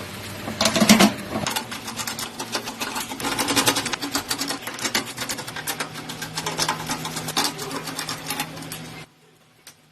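Rapid, steady mechanical clicking, densely repeated like a small machine running, with a louder burst about a second in; it cuts off suddenly about nine seconds in.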